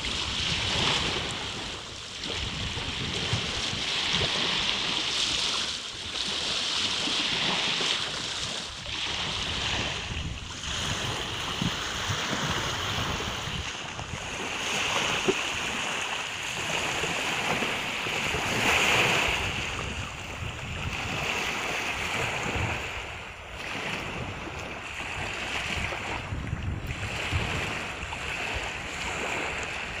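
Small Black Sea waves breaking and washing up a sandy shore, the surf swelling and easing every few seconds. A low, uneven rumble of wind on the microphone runs underneath.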